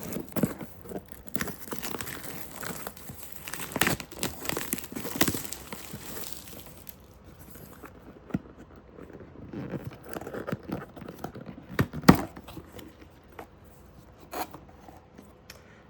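Packaging being torn open and handled: irregular tearing and crinkling, busiest for the first several seconds, then lighter rustling with a sharp snap about twelve seconds in.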